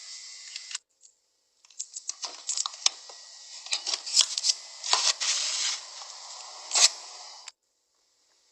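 Slime being pressed and worked by hand, giving dense crackling clicks and sharp pops. It pauses for about a second near the start and stops suddenly about a second before the end.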